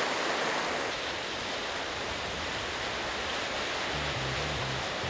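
Ocean surf washing over and breaking on rocks, a steady rushing noise. About four seconds in, a low bass line of background music comes in under it.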